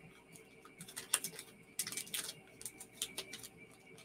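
Scattered light clicks and crackles in three or four short clusters, the sound of small items or wrapping being handled, over the faint steady hum of an air conditioner.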